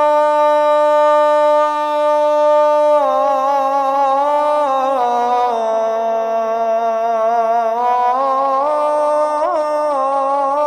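A muezzin's solo voice chanting the adhan, holding one long, ornamented note within "hayya 'ala as-salah". The note is held steady at first, then moves through small wavering turns, steps down in pitch about halfway through and climbs back up near the end.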